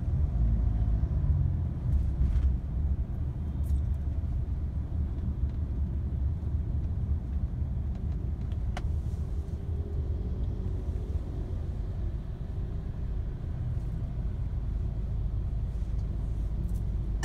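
Steady low rumble of a car driving in city traffic, heard from inside the cabin: engine and tyre noise.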